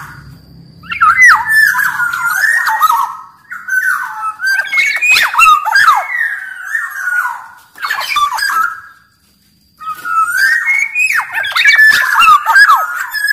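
Black-naped oriole (kepodang) singing hard in busy phrases of quick gliding whistles and harsh, nasal notes, in about four bursts split by short pauses.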